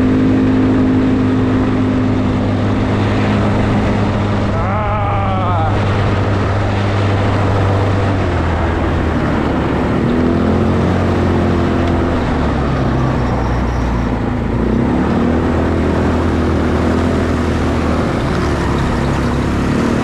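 Four-wheeler (ATV) engine running steadily while riding, its note dropping to a new pitch about eight seconds in and shifting again around twelve seconds.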